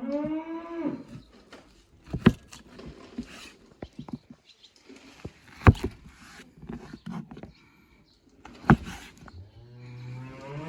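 A cow mooing, one call at the start and another starting near the end, with three sharp knocks about three seconds apart in between.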